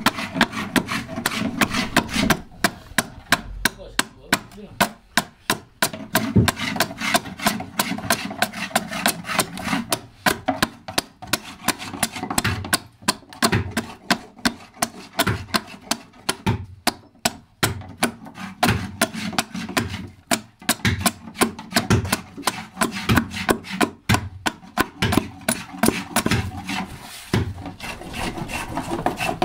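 Hand adze (keser) chopping into the inside of a mulberry-wood saz bowl as it is hollowed out: quick, uneven wooden blows, several a second, without a break.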